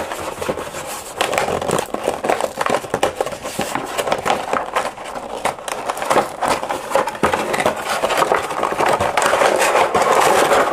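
Cardboard box flaps and a clear plastic blister tray being handled and pulled apart, with constant crinkling and crackling of thin plastic and rustling of cardboard, a little louder near the end.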